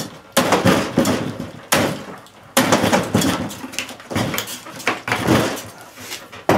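Hammer blows on a Macintosh Classic II computer: a series of hard, irregularly spaced knocks, each with a brief rattle.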